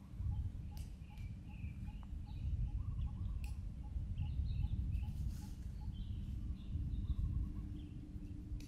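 Outdoor ambience: birds chirping over a constant low rumble, with a faint regular pipping about three or four times a second.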